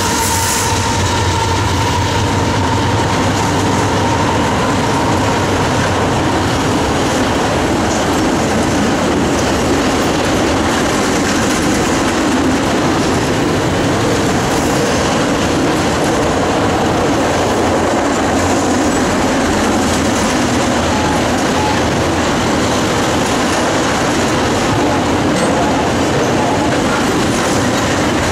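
A freight train passing close by. A trailing diesel locomotive's engine tone fades about a second in, then a string of autorack cars rolls past with a steady rumble of wheels on rail and clickety-clack.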